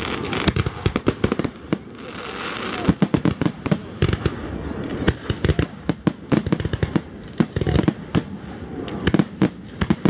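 Aerial fireworks display: a rapid, irregular string of sharp bangs from bursting shells, several a second, with stretches of crackling hiss between them.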